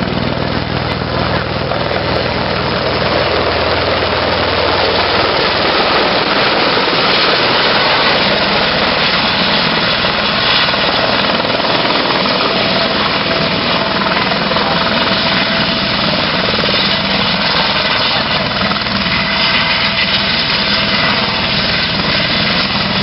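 Eurocopter EC130 single-turbine helicopter coming in to land and settling onto the pad, with steady, loud rotor and turbine noise. It is loudest about a third of the way through as the helicopter comes in close.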